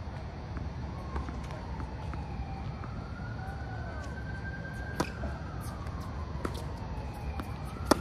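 A tennis ball bounced on a hard court before a serve, then a sharp racket strike on the serve near the end, the loudest sound. There is another sharp pop about five seconds in, and a faint siren wails up and down in the background.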